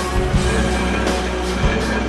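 Background music: a song with sustained tones over deep bass beats.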